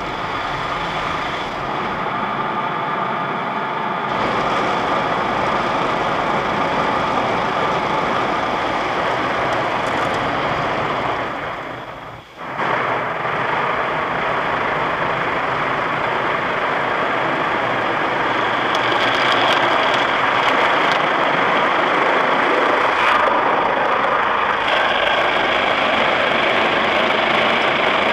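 Automatic car wash spraying water over the car, heard from inside the cabin as a loud, steady rush of water. It drops away briefly about twelve seconds in, then comes back a little louder and brighter in the later part.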